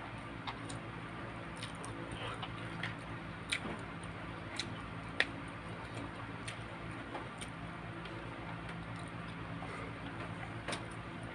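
Eating sounds at close range: scattered wet clicks and smacks from chewing and from bare fingers mixing rice and chicken on a plate, over a steady low hum.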